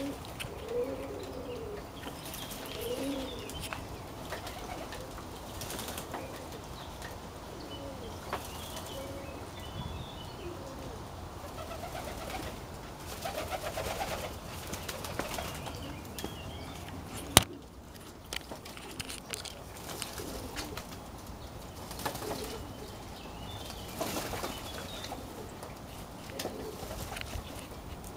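Domestic pigeons cooing again and again, with bursts of wing flapping. A single sharp click a little past halfway is the loudest sound.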